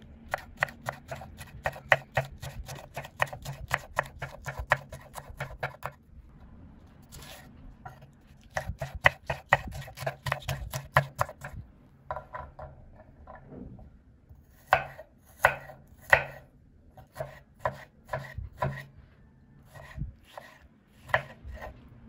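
Kitchen knife chopping green peppers and tomatoes on a wooden cutting board: runs of quick, even knocks, about five a second, broken by short pauses, then slower, scattered cuts in the second half.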